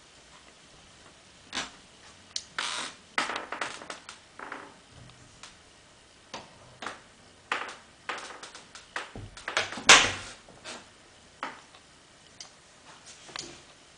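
Irregular clicks and knocks from movement around a tiled room, a few a second at most, with the sharpest and loudest knock about ten seconds in.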